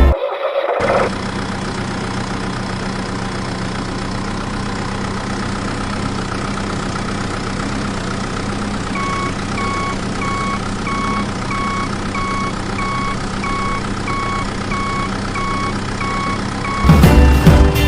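A vehicle's motor running steadily with a low hum, joined about halfway through by a reversing alarm beeping about twice a second.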